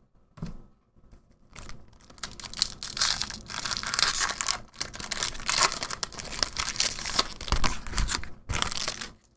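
A foil Magic: The Gathering booster pack wrapper being torn open and crinkled by hand. The irregular papery crackle starts about a second and a half in and stops just before the end.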